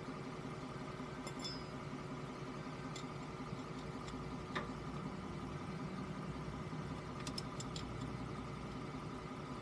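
Ford F-150's engine idling steadily under the truck, with a few light metallic clicks of a wrench working on the transmission fill plug; the sharpest click comes about halfway through, and a quick cluster comes near the end.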